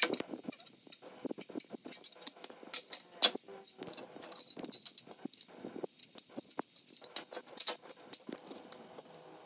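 Irregular clicks, taps and light knocks of hand tools and metal parts being handled, with one sharper knock about three seconds in.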